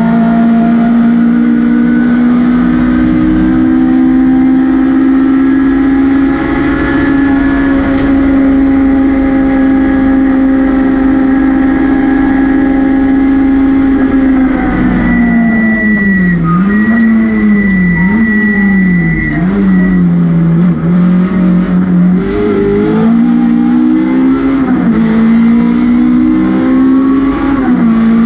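MG ZR rally car's four-cylinder engine heard from inside the cabin, held at high, steady revs for about half the time. It then drops and rises several times as the throttle is lifted and reapplied, with a thin high squeal for a few seconds, before climbing in steps through the gears back to high revs.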